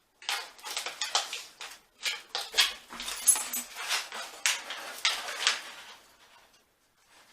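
Mountain House freeze-dried meal pouch crinkling and rustling as hands tug and twist at its tightly sealed top, trying to tear it open without success. It starts a moment in and stops about six seconds in.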